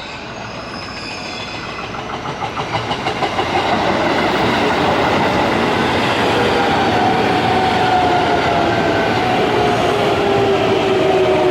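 Electric commuter train running into the station: it grows louder, with a beat of wheels clacking over rail joints as it draws near, then runs steady and loud while a motor whine slowly falls in pitch as it brakes.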